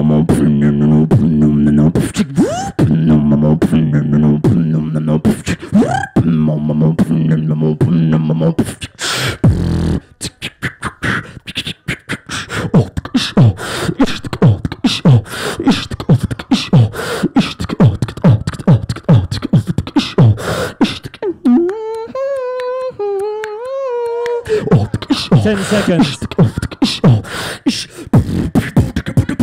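A male beatboxer performing into a handheld microphone. It opens with deep sustained bass tones under clicks, then moves into fast kick-and-snare percussion. About two-thirds through, a wavering pitched hum lasts about three seconds before the percussion returns.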